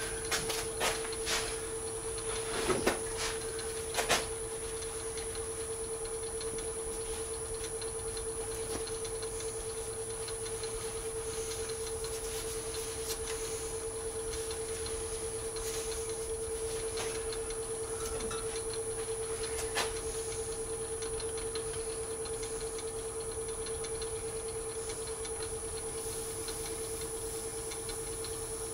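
A lathe running at a steady speed with a resin globe spinning on it: an even motor hum with a thin high tone above it. A few light clicks come in the first few seconds, and one more near the middle.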